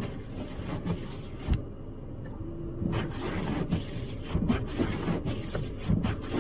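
Car cabin sound with the car stopped at a light: a low engine rumble, and from about halfway on a regular run of windshield-wiper swishes, roughly two a second, across a snow-covered windshield. There is a single thump near the start.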